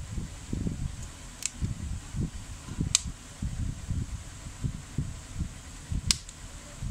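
Plastic case of a feature phone being pried open with a metal opening tool: three sharp clicks as the housing clips snap loose, over low knocks and rubbing from the phone being handled.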